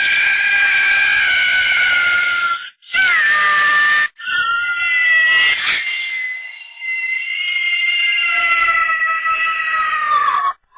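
Cartoon squirrel Scrat screaming, voiced by Chris Wedge: three long, high-pitched screams, the last held for about six seconds and slowly sinking in pitch.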